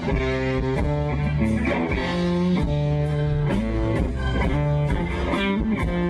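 A live band playing a blues-rock tune, with electric guitar over bass guitar.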